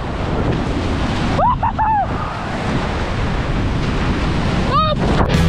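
Surf washing up over the sand at the shoreline, with wind on the microphone. Three brief high-pitched calls sound about a second and a half in, and one more near the end.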